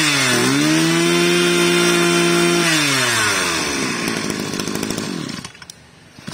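Mitsubishi TU26 26cc two-stroke brushcutter engine run at high revs, with a brief dip and recovery about half a second in. It slows to idle about three seconds in, then cuts off near the end.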